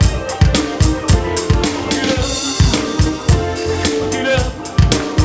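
Live gospel band playing an instrumental groove, led by a drum kit with steady kick and snare hits over bass and keyboard or guitar tones, and a cymbal crash about two seconds in.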